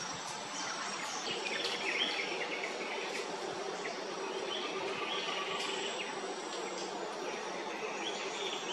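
Tropical forest ambience: a steady insect chorus with thin high whining tones, and bird calls that come and go.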